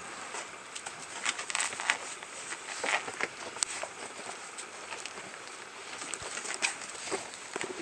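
Straw bedding rustling and crackling as puppies move through it and paw and mouth a small ball, with scattered sharp clicks and taps.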